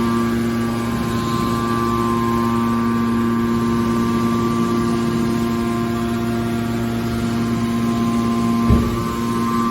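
Hydraulic car baler's pump and motor running with a steady hum of several held tones over a low rumble. A single short knock comes near the end.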